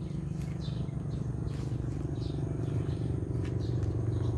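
A steady low engine drone that slowly grows louder, with a small bird chirping in short high notes every second or so.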